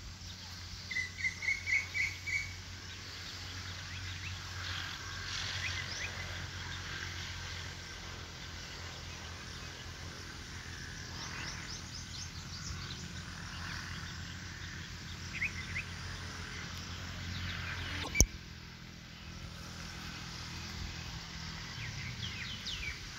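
Outdoor ambience with small birds chirping, including a quick run of about five notes about a second in, over a steady low hum. A single sharp click comes near the end.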